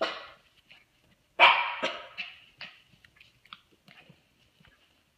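Toy Australian Shepherd puppy barking in play: a short bark at the start, a louder bark about a second and a half in followed at once by a second, then a few fainter short sounds.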